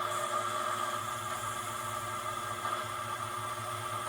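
A small machine motor running steadily, a constant whir with a held whine.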